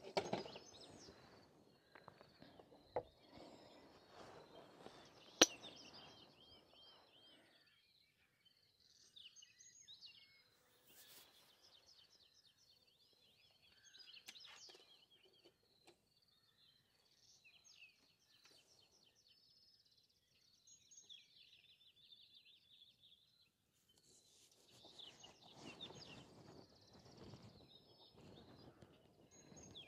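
Faint birdsong: small birds chirping in quick repeated high phrases. There is rustling in the first few seconds and again near the end, and a single sharp click about five seconds in.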